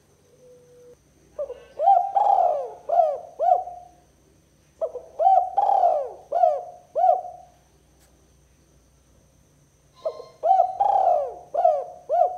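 Spotted dove (tekukur) cooing: three phrases, each a run of about half a dozen coos with one longer note near the start.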